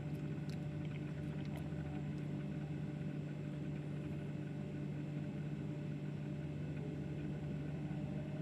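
Steady hum of a small electric motor, the motorized display turntable still spinning, with a few faint clicks in the first couple of seconds.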